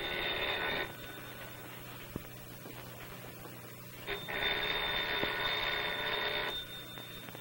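Old desk telephone's bell ringing twice: one ring ending about a second in, the next starting about four seconds in and lasting a little over two seconds, over a steady low hum.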